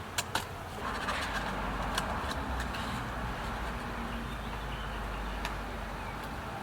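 Steady background noise with a low hum, broken by a few short sharp clicks, the first two close together near the start and then two more spread through the rest.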